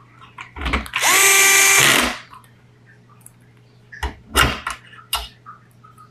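Power drill driving a screw for about a second and a half, its motor spinning up to a steady whine and then stopping. A few sharp clicks and knocks follow a couple of seconds later.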